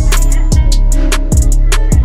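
Background music with a steady drum beat and heavy bass.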